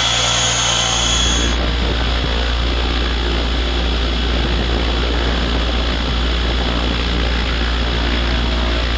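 Radio-controlled model helicopter running, its motor and rotor giving a steady whine. About a second and a half in the whine fades and a loud low rumble with rushing noise takes over.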